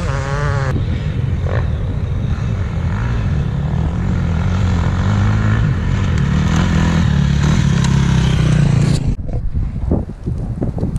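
Off-road vehicle engine running steadily, with wind on the microphone. About nine seconds in the engine sound drops away and choppy wind buffeting is left.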